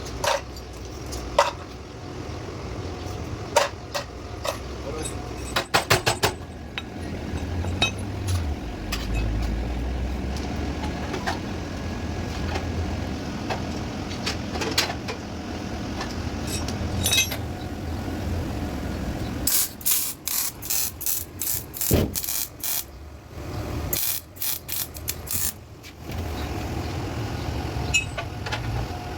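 Workshop metalwork sounds over a steady background noise: scattered sharp metal knocks and clanks, and about 20 and 24 seconds in two runs of rapid sharp ticks.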